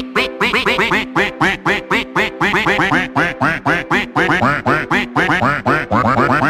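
Duck quacks repeated in a fast even rhythm, about four a second, over music with held tones: quacking set to a dance track.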